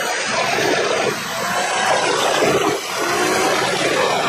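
Truck-mounted wood chipper running and chipping logs, a steady dense rushing noise without pause.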